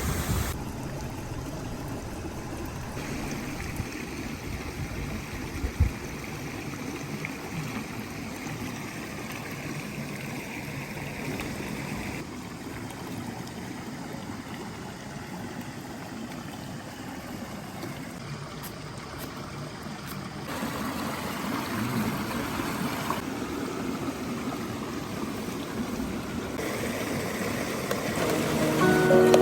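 Stream and waterfall water rushing steadily over rock, across several spliced clips that change the water's level and tone abruptly, with a single short knock about six seconds in.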